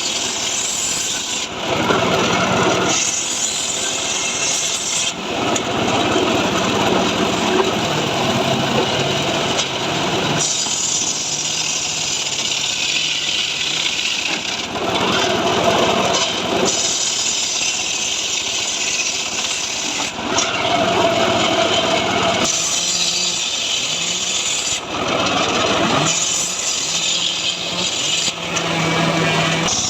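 Stihl MS 382 two-stroke chainsaw cutting through dry mahogany under load, its engine note shifting every few seconds as the cut bites and eases.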